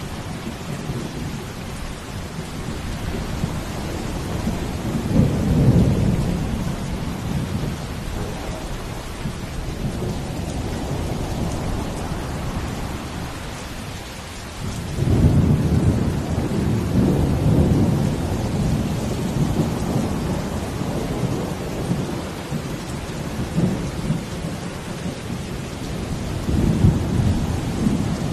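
Steady heavy rain hiss, with deep rumbles swelling up about five seconds in, again for several seconds from about fifteen seconds in, and once more near the end.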